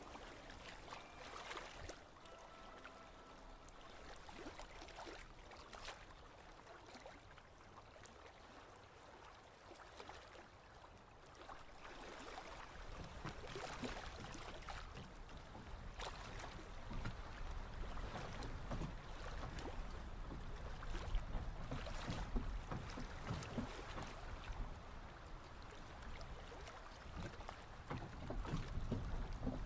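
Layered Foley soundscape: waves and wind, a boat at a dock, and rain beginning in the distance, with scattered small knocks and clicks. About halfway through it grows louder, with a deeper rumble underneath.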